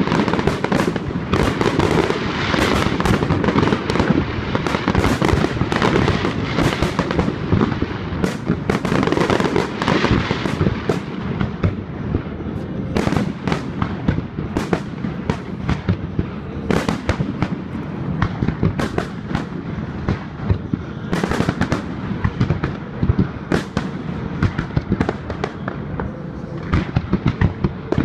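Fireworks display: a dense, continuous barrage of overlapping cracks and bangs from bursting shells, thinning to more separate sharp bangs in the second half.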